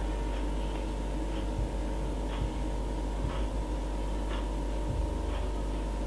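Steady low electrical hum with a faint high tone, and a faint light tick about once a second.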